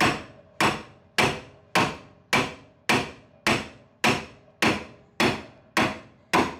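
Steady hammer blows driving the front torsion bar of a 1967 Dodge Dart home into its rear anchor, a little under two evenly spaced strikes a second, each with a short metallic ring.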